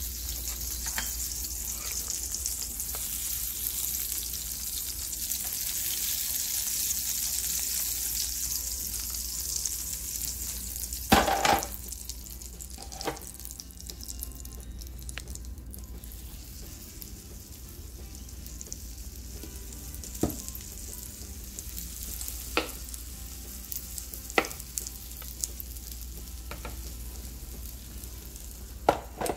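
Butter sizzling on the hot plates of a flip waffle iron as it is brushed on, the hiss fading after about ten seconds. Then a metal spoon clinks and scrapes against a ceramic bowl and the iron as batter is scooped and spread, a handful of sharp knocks with the loudest a little before the middle.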